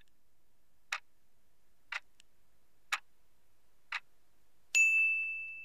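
Quiz countdown timer sound effect: five clock-like ticks, one a second, then a single high chime that rings on as the five seconds run out.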